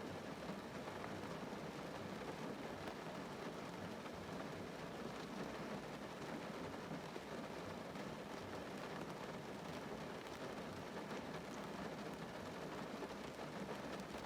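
Rain drumming steadily on a car's roof and windows, heard from inside the cabin as a dense, even patter.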